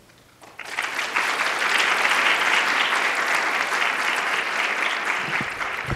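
Audience applauding. The clapping starts about half a second in, holds steady, then dies away near the end.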